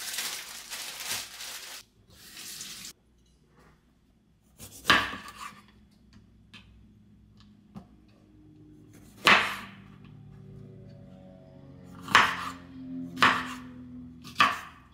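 Kitchen clatter of bowls and dishes being handled: about two seconds of rushing noise at the start, then scattered sharp knocks and clinks, the loudest about five seconds in and about nine seconds in.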